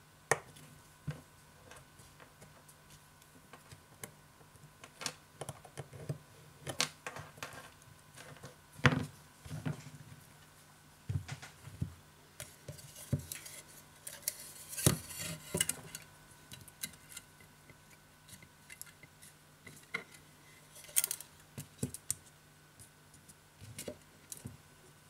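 Scattered small clicks and taps from hands and a tool handling a smartphone's open frame and internal parts during reassembly, loudest about nine and fifteen seconds in.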